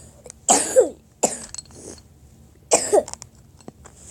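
A person coughing hard in three bouts: a double cough about half a second in, a single cough just after a second, and another double cough near three seconds.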